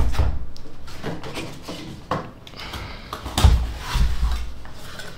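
A cardboard mailer box being handled and its lid opened, with several short knocks and scrapes of cardboard. The loudest is about three and a half seconds in.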